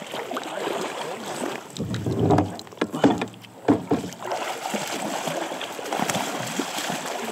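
Water splashing and sloshing as a hooked salmon thrashes at the surface beside a raft, with two sharp knocks a little after three seconds in.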